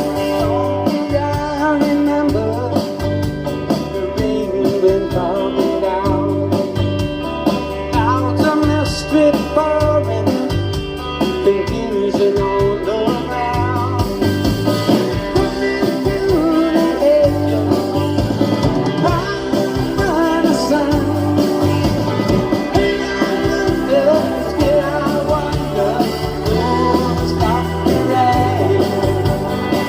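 Live rock band playing a song: guitars, bass and drums with a male lead voice singing.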